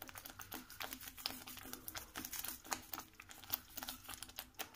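A plastic spice packet crinkling as coriander powder is shaken out of it, with many short, irregular crackles.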